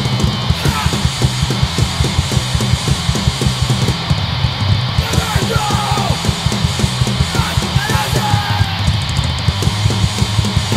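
Hardcore punk band playing live: distorted electric guitar and bass over a fast, driving drum beat that kicks in right at the start, with vocals coming in partway through.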